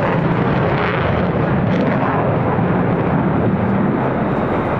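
Mitsubishi F-2B fighter's single F110 turbofan engine, a loud, steady jet noise as the aircraft banks through a tight, high-G turn.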